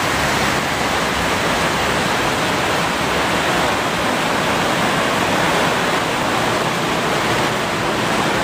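Heavy rain pouring down on the roof overhead, a steady, even rush of noise, heard through a phone's microphone.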